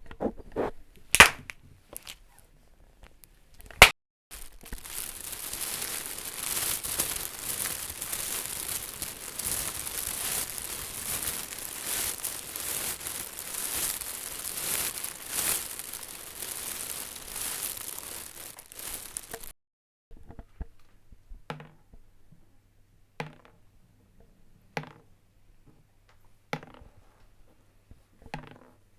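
Something being crushed and crumpled: a few sharp snaps, then about fifteen seconds of continuous crackling that stops abruptly, then a string of separate knocks about every second and a half.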